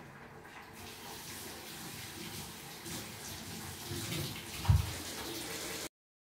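Steady murmur of a large crowd, with a single thump about three-quarters of the way through. The sound cuts off abruptly near the end.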